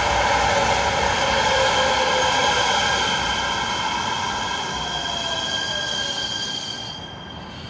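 Los Angeles Metro light-rail train of Kinki Sharyo P3010 cars running past the platform, its steel wheels giving a steady high squeal over the rolling rumble. It fades over the last couple of seconds as the last car goes by.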